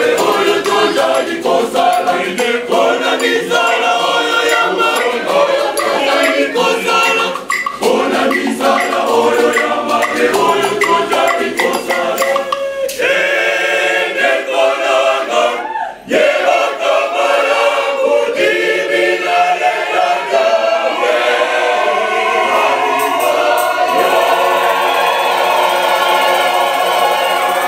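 A choir of men and boys singing a church song, with a metal shaker rattling in time. The sound drops briefly about sixteen seconds in, then the singing carries on.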